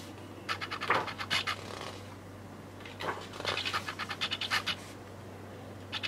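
Paper pages of a hardcover photobook being turned, rustling and crackling in two bursts, about half a second in and about three seconds in, with a shorter rustle near the end.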